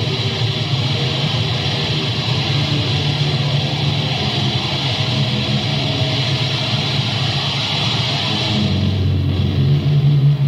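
Sludge/doom metal recording: slow, heavily distorted electric guitar and bass holding long chords. Near the end the chord changes to a lower, darker one.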